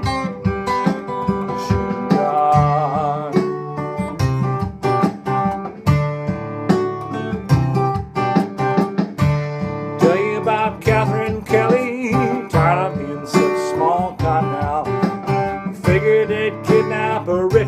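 Acoustic guitar strummed in a steady rhythm, with a voice singing along at times.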